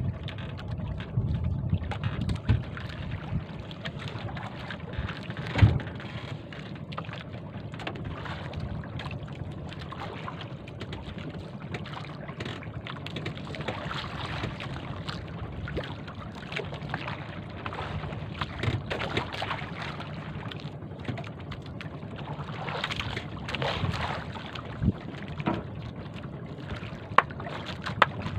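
Small bamboo-outrigger boat under way at sea, with wind on the microphone: a steady low drone, water noise and wind, broken by occasional sharp knocks and clicks as the handline and catch are handled.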